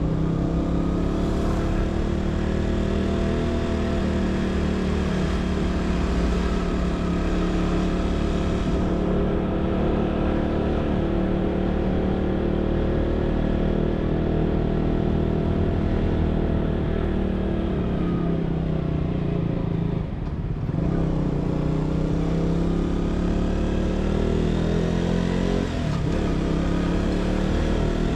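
Motorcycle engine running under way, its pitch rising and falling with the throttle, with a brief drop in the engine note about twenty seconds in.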